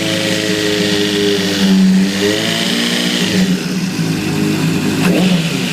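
Honda CBR600RR inline-four engine running with the throttle blipped, the revs rising and falling, and a short sharp tick about five seconds in. The owner hears a weird noise he had blamed on the cam chain tensioner and thinks it is still there after replacing the tensioner, though he is unsure whether he is imagining it.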